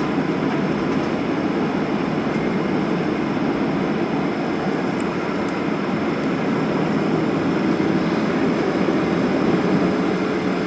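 Steady cabin noise inside a Boeing 737 taxiing after landing, its engines at idle, with a low rumble.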